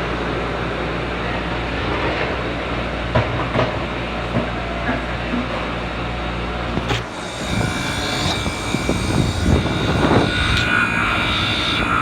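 Manitowoc ice machine running with a steady compressor hum. About seven seconds in, a click sounds and the low hum cuts off, giving way to higher steady tones and uneven rumbling as the machine switches mode.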